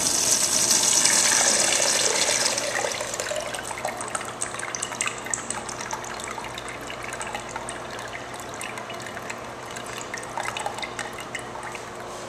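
Crane urinal flushed by its manual lever flush valve: a sudden rush of water, loudest for the first two seconds or so, then easing into trickling and dripping as the flush tapers off and the bowl drains.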